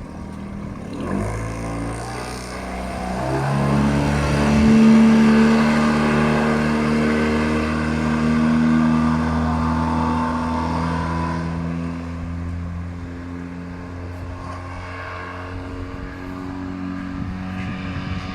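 Honda BF20 four-stroke outboard motor speeding up over the first few seconds, then running steadily at speed; loudest about five seconds in, then slowly fading.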